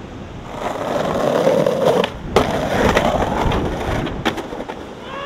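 Skateboard wheels rolling on pavement, building in loudness, then a sharp crack of the board about halfway through, followed by the board scraping along a concrete ledge and a few hard clacks as it comes off and lands.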